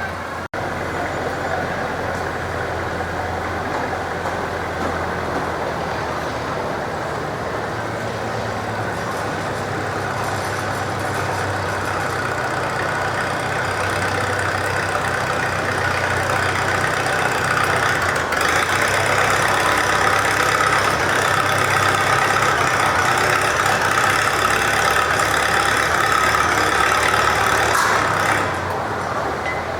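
Farm tractor engine pulling a weight sled, steady at first, then building louder with a higher-pitched note from about halfway in, and easing off shortly before the end.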